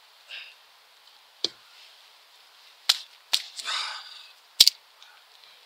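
Small dry twigs snapped by hand for stove kindling: four sharp cracks spread over a few seconds, the last the loudest, with a brief rustle of handled sticks between them.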